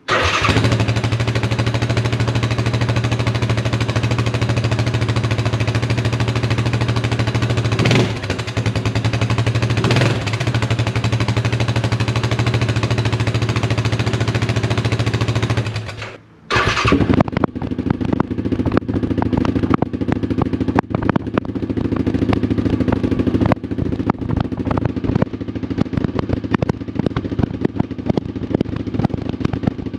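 Yamaha Grizzly 700 single-cylinder four-stroke engine running at idle through the stock exhaust, with two short blips about 8 and 10 seconds in. After a short break, the same engine idles through a 2R Racing exhaust tip, with a more pulsing exhaust note.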